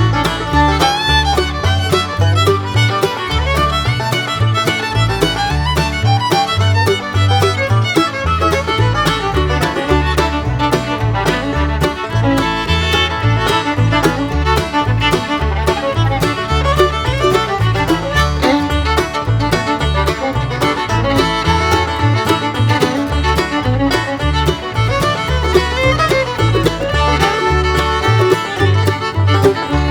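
Upbeat bluegrass-style music with fiddle and banjo over a steady bass beat.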